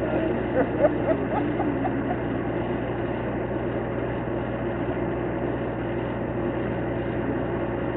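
Steady low engine hum mixed with outdoor street noise, with a few faint distant voices and brief knocks in the first second or so.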